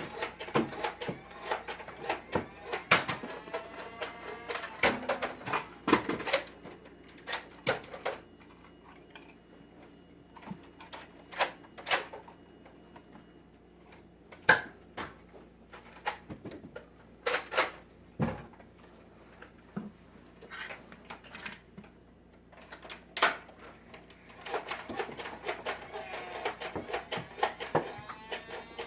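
Irregular, scattered clicks and knocks of a plastic Nerf dart blaster being handled, primed and fired, with short quiet gaps between bursts.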